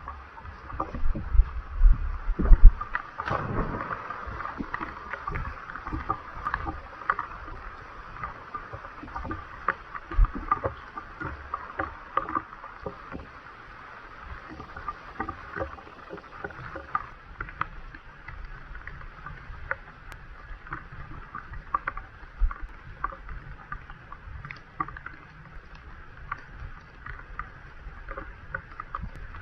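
Gusty wind in a forest, rumbling on the microphone most strongly in the first few seconds, with a steady rustle and many scattered sharp clicks and crackles throughout.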